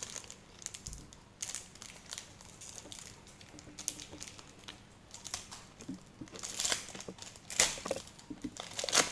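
A foil trading-card packet being crinkled and torn open by hand, in scattered crackles that grow louder in the second half.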